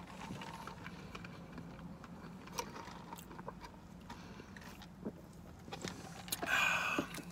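Quiet sipping of a fountain drink through a plastic straw from a paper cup, with scattered small clicks of the cup and a short breathy sound near the end. A faint steady hum runs underneath.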